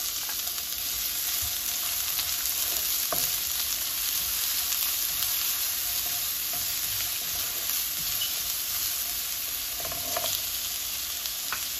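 Chopped onion sizzling steadily in hot oil in a nonstick kadhai while it is stirred with a spatula. A few light clicks of the spatula against the pan come through the sizzle.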